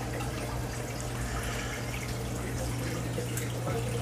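Reef aquarium water circulating: an even trickle of running water over a steady low pump hum.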